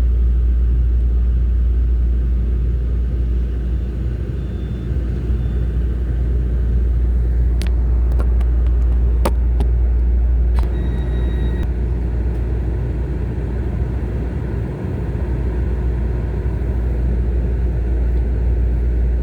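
Steady low rumble of a Taroko Express electric train running, heard from on board. A few sharp clicks come a little before halfway, followed by a brief high beep.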